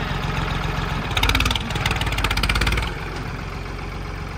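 Farmtrac 45 tractor's three-cylinder diesel engine running, revved up hard for about two seconds a second in, then dropping back to a lower, steady run.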